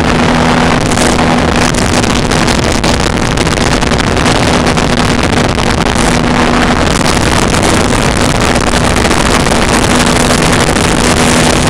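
Flyer GT light aircraft's piston engine and propeller running loudly and steadily, with a constant engine hum under heavy wind and airflow noise.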